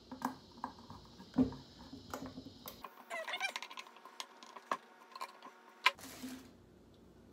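Light clicks and knocks as screws are started and driven into the plastic cover of an air pump's housing and the pump is handled on a wooden bench. Two sharper knocks, about a second and a half in and near the end, are the loudest. A brief pitched, wavering squawk-like sound comes about three seconds in.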